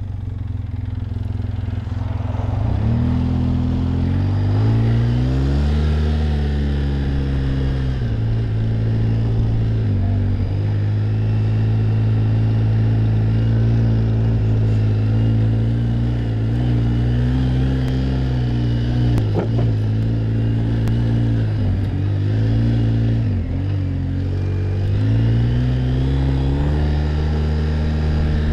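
ATV (quad bike) engine pulling away from low revs about two seconds in, then running at steady riding revs, easing off and picking up again a few times and rising again near the end.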